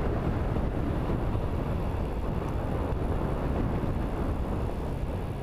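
Steady wind rumble on the microphone of an action camera riding on a moving e-bike, mixed with tyre and road noise.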